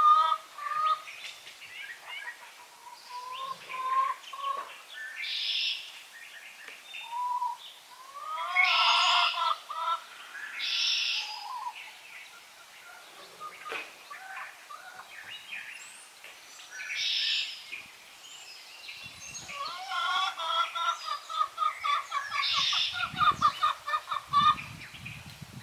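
Hens clucking and squawking at intervals, with a quick run of clucks near the end.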